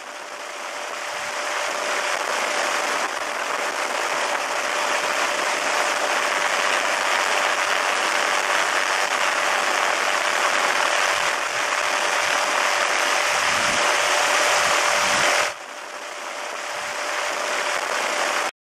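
Steady rushing noise of a helicopter in flight with a constant mid-pitched hum; the level drops about 15 seconds in and builds back up.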